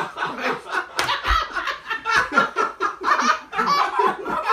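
Several people laughing hard together in rapid bursts, with a single sharp click about a second in.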